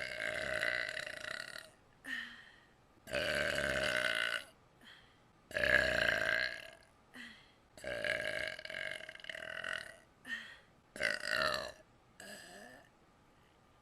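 A person burping over and over: about seven belches in a row, the longest drawn out for around two seconds, with short pauses between them.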